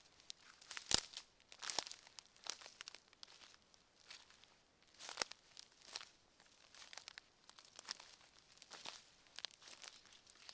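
Footsteps on a forest floor, each step a crackly crunch under the walker's feet, with a quieter stretch a few seconds in.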